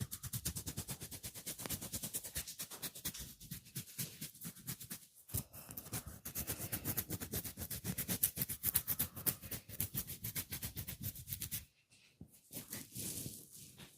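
Hands striking a head in fast, even massage strokes, several a second, stopping about twelve seconds in. Quieter, scattered rubbing follows.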